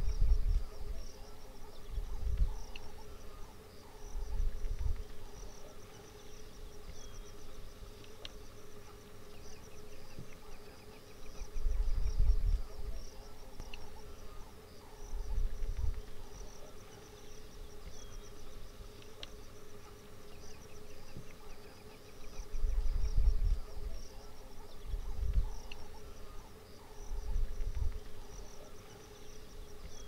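Steady chorus of buzzing, chirring insects over a constant low drone. About eight deep, muffled rumbles, each lasting about a second, swell and fade in three clusters and are the loudest sound.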